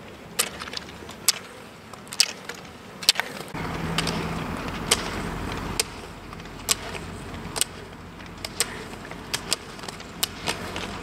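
Roller skiers skating on asphalt: sharp, irregular clicks of carbide pole tips planting on the tarmac, over the rolling noise of the roller-ski wheels. A louder rolling rumble with a low hum comes in about three and a half seconds in and eases off around six seconds.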